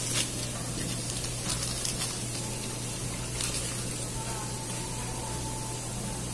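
Clear cellophane wrapper crinkling in short crackles as it is pulled off a box of chocolates, then the box being handled, over a steady low background hum.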